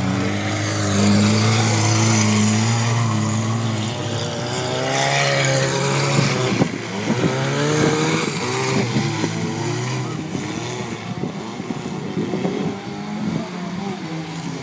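Racing hatchback's engine revving hard, its pitch rising and falling as the car accelerates and lifts, growing fainter as it pulls away.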